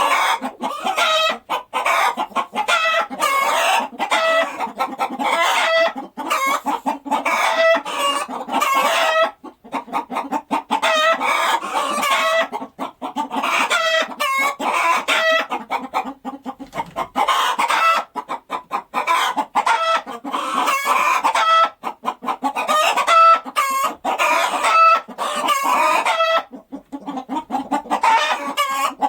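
Chickens clucking, many short calls overlapping in a steady stream with only brief pauses.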